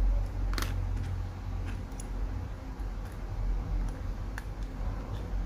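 A few small sharp clicks and ticks of a precision screwdriver and tiny screws being worked inside an iPhone 4S during disassembly, the loudest about half a second in, over a steady low hum.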